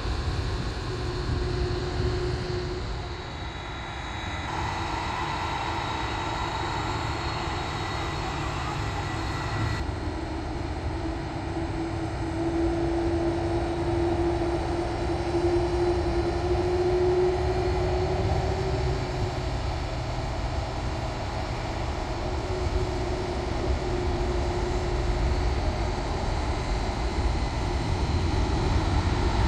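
Jet airliner engines running at a distance: a steady rumble with a faint held whine, getting louder near the end.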